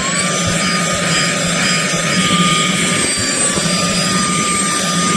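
Cordless handheld vacuum cleaner running at full suction with its nozzle removed, picking up crumbs from a table: a steady high motor whine over rushing air, its pitch rising slightly just at the start.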